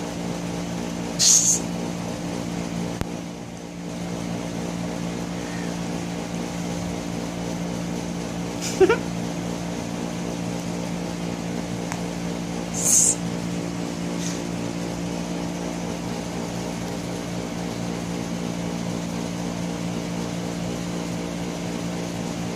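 A steady low mechanical hum with several fixed pitches, broken by a few brief high hissing scuffs and one sharp click.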